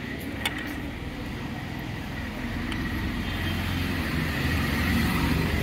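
Street traffic: motor scooters and motorcycles running along the road, with one engine growing steadily louder as it approaches over the last few seconds.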